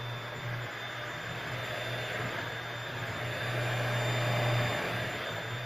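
Bissell 3-in-1 stick vacuum cleaner running steadily, its motor giving a high whine over a rushing of air, a little louder about two-thirds of the way through.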